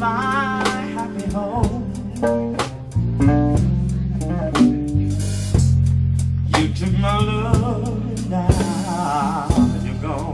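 Slow blues band music with no vocal line: a lead electric guitar plays bent, wavering notes with vibrato over steady bass notes and drums.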